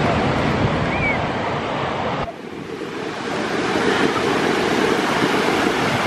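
Ocean surf breaking and washing onto a sandy beach, with wind rumbling on the microphone. The sound shifts abruptly a little over two seconds in, and the low rumble grows stronger after that.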